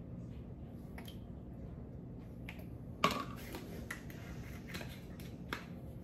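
Small handling clicks from a glass olive-oil bottle and its screw cap being closed by hand, with one sharper clink about halfway through and a softer one near the end.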